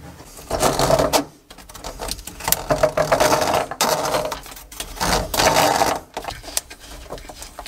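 Plastic washing-machine drain hose scraping and knocking against the plumbing under a sink as it is worked onto the waste connection, in several short bursts with clicks.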